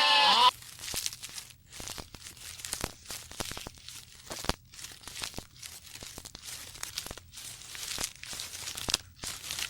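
The end of a goat-like bleat, followed by irregular crackling, crunching and rustling noises, like dry material being crumpled or trodden.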